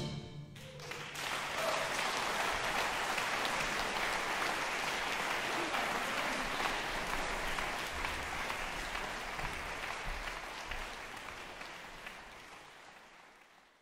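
Audience applauding, the clapping building about a second in, holding steady, then fading away near the end.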